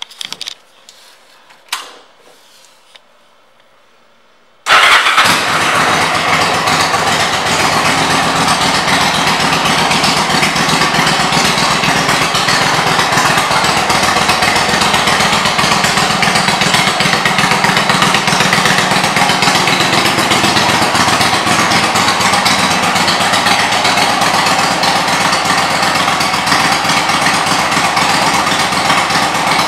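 Yamaha V Star 1100's air-cooled V-twin engine with aftermarket exhaust pipes, coming in suddenly about five seconds in and then running steadily. Before it, a few light clicks.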